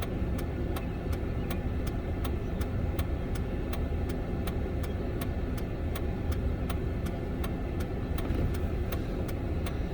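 Steady low hum of an idling vehicle engine, likely the Ford F-150 pickup, heard from inside the cab, with an even ticking about three times a second over it.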